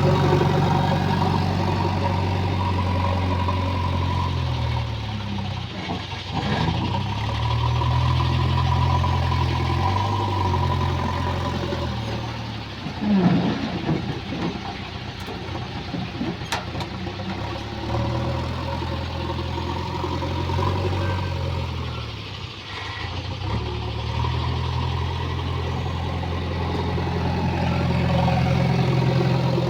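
JCB 3DX backhoe loader's diesel engine running while it works, its note dropping and rising again several times as the load on it changes. There is a short louder clatter about halfway through.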